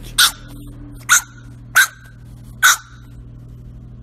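Pug puppy barking four times in short, high yaps, about one a second.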